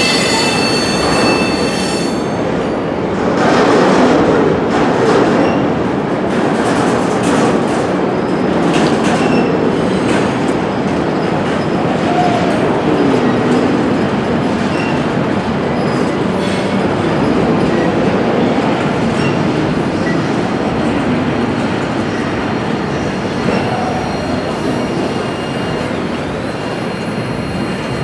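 Freight train's cars rolling past, with a steady rumble and clatter of steel wheels on the rails. High-pitched wheel squeal sounds over it for the first couple of seconds.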